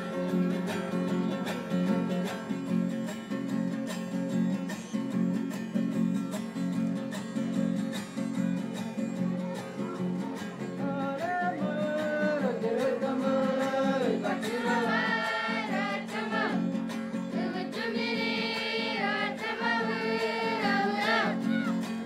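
Acoustic guitar strumming steadily. About halfway through, high voices start singing a melody together over it.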